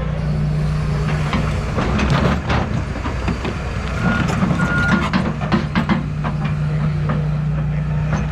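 Excavator's diesel engine running steadily, with a series of sharp clanks and scraping as the bucket works the dirt in the middle stretch, and two short high tones a little past halfway.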